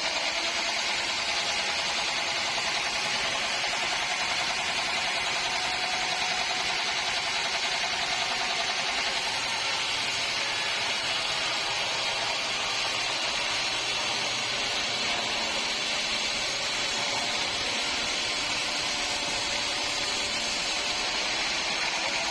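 Sawmill saw cutting through teak wood: a steady, continuous high-pitched sawing noise with machinery running under it.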